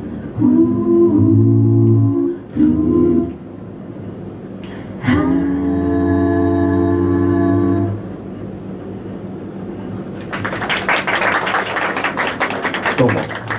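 Five-voice a cappella group singing close chords, breaking off and then holding one long final chord for about three seconds. About two seconds after the chord stops, the audience breaks into applause that lasts to the end.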